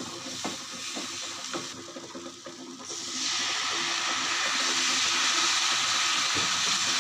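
Wooden spatula stirring and scraping thick masala paste as it fries in oil in a nonstick pan. About three seconds in, water is poured in and the pan breaks into a loud, steady sizzling hiss as the water hits the hot masala.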